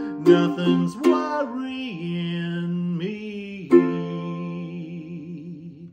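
Ukulele strumming a few chords, the last struck about four seconds in and left to ring and fade, under a man's long held sung note with vibrato: the song's final chord.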